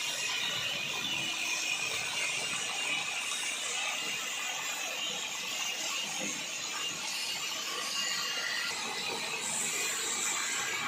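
Steady mechanical clatter and rattling from machinery running, with no pauses.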